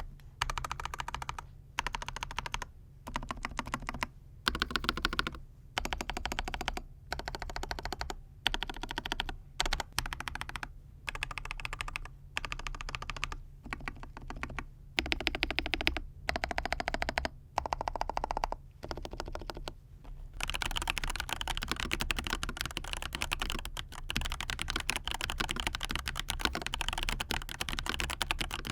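Mechanical keyboard with fully lubed FEKER Matcha Pro tactile switches being typed on: short runs of rapid keystrokes separated by brief pauses, then continuous fast typing without breaks for the last third.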